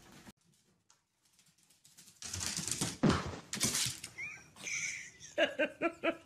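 A corgi-type dog vocalizing: two loud breathy bursts, a short rising squeal, then a quick run of short yips near the end.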